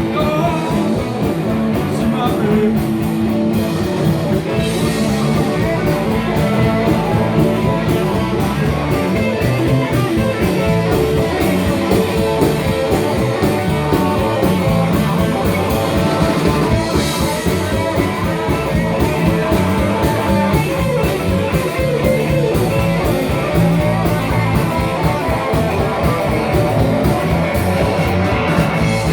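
Live rock-and-roll band playing: guitar over a steady drum beat.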